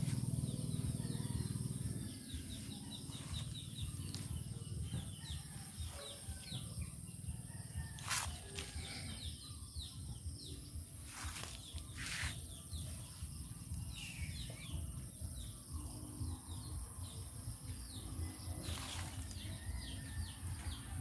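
Garden ambience of small birds chirping over and over in short, falling notes, over a steady high-pitched whine. There are a few brief bumps or rustles, and a low rumble fades about two seconds in.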